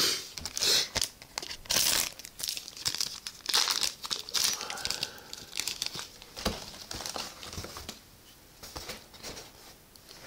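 Foil trading-card booster pack wrapper being torn open and crinkled by hand, a dense run of crackling in the first half, then sparser, quieter rustling.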